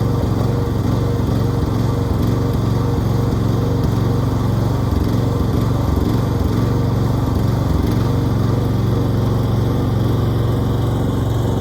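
Engine running steadily, its low hum wavering and dipping several times between about one and eight seconds in before settling again.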